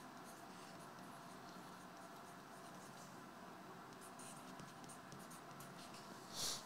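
Marker pen writing on a small slip of paper: faint, scratchy strokes, with a brief louder swish near the end.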